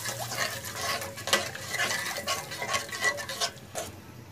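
A spatula stirring and scraping thin masala gravy in a metal kadhai, with irregular clinks against the pan over a low sizzle of the simmering gravy.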